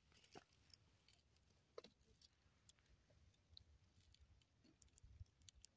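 Near silence, with a few faint clicks scattered irregularly through it.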